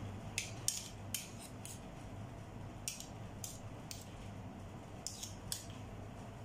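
Metal fork and spoon clinking together as mashed potato is scraped off the spoon onto a steel baking tray. The clicks are light and sharp, about a dozen of them in irregular clusters.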